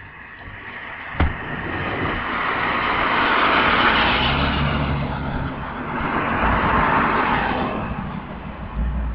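Passing road traffic: a rushing noise of tyres and engines that swells up, peaks twice, about four and seven seconds in, and fades near the end. A single sharp click sounds just after a second in.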